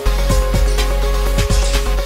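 Background electronic music with a steady beat and a deep bass.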